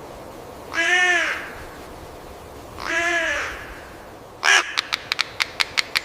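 A crow cawing twice, two hoarse calls about two seconds apart, followed by a quick run of sharp clicks or taps.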